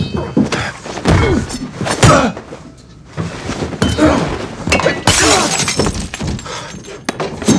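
Fight sound effects: a rapid run of thuds and blows with glass breaking and shattering. The loudest hit comes about two seconds in, with a short lull just before three seconds.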